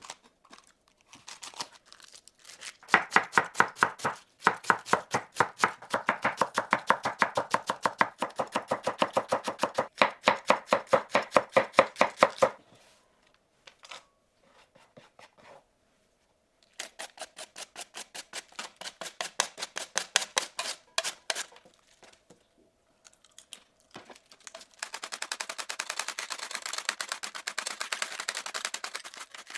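Kitchen knife chopping on a cutting board in fast, even strokes, several a second, in three runs with short pauses between; the last run is quicker and quieter.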